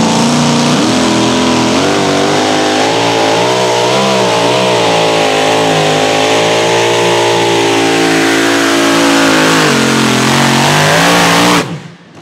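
Supercharged engine of a super modified two-wheel-drive pulling truck at full throttle under the load of the pulling sled. Its pitch climbs about a second in, wavers up and down for a few seconds, then holds steady and falls slightly before the sound cuts off suddenly near the end.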